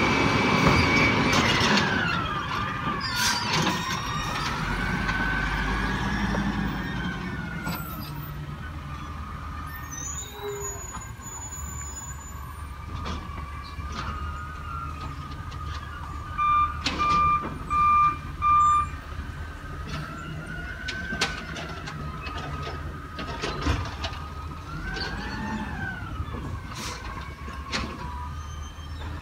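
Peterbilt 320 garbage truck with an Amrep side-loader body working, its engine and hydraulics giving a whine that slides slowly down and up in pitch, strongest at the start. A run of four short beeps comes a little past halfway.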